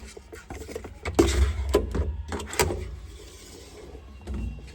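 Steel toolbox drawer being handled and pulled open on its slides, with loud clunks and rattles about a second in and again a second and a half later, and a low rumble of handling beneath.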